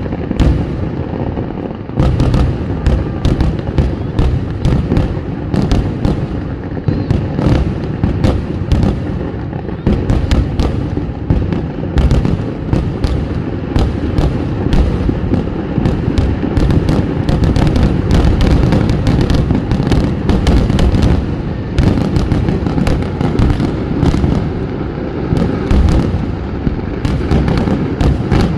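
Kerala vedikettu fireworks: a loud, dense, unbroken barrage of firecracker bangs and booms, many blasts a second running into one another with no pause.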